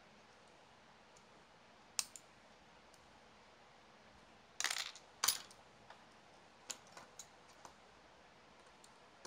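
Sharp clicks and clatters of small plastic and metal parts and hand tools being handled and set down while a WLtoys 1/28 RC car chassis is taken apart. There is a single click about two seconds in, then a quick cluster of clatters a little before the middle, the loudest a moment later, and a few lighter taps after that.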